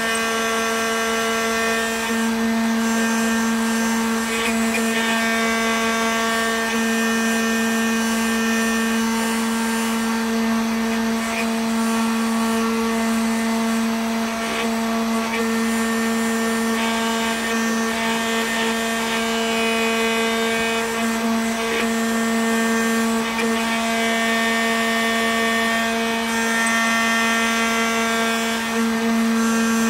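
Spindle motor of a homemade CNC router running with a steady pitched hum while its engraving bit mills a block of carving wax. Some of the higher tones come and go as the machine works.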